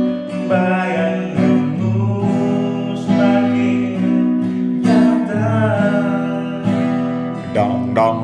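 Acoustic guitar strummed in a slow ballad while men sing along in Indonesian.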